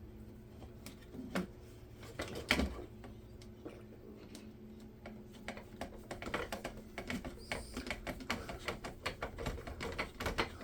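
Small plastic kit parts and a hand tool clicking and tapping during RC car assembly: a few separate clicks, then a fast run of light ticks from about halfway through.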